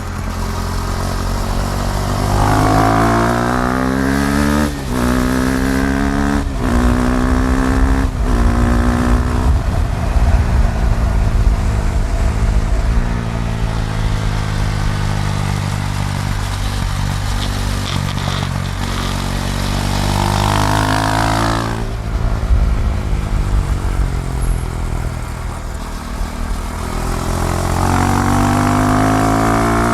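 KTM Duke 390's single-cylinder engine under hard acceleration, its pitch climbing and then dropping sharply at each of several quick upshifts in the first ten seconds. It then runs at a steady speed, revs up again to another shift about two-thirds of the way through, and climbs once more near the end.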